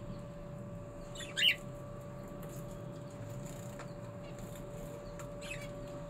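Small cage birds calling: one loud, brief high-pitched chirp about a second and a half in, then fainter chirps near the end, over a steady low hum.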